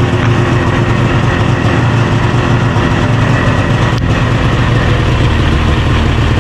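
Arctic Cat Crossfire 800 HO snowmobile's two-stroke twin idling steadily, running on a newly fitted fuel pump and regulator assembly.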